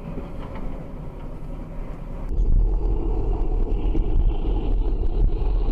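Dash-cam audio of vehicles driving: steady road and engine noise from a vehicle on the move. About two seconds in it cuts abruptly to a louder, deeper rumble of a car driving.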